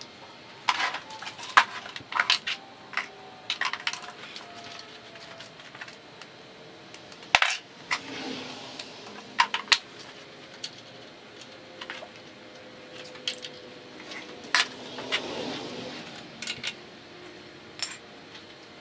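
Metal tools and parts clinking and clattering as they are picked up and set down, a string of sharp clinks at uneven intervals, sped up; the loudest clank is about seven seconds in.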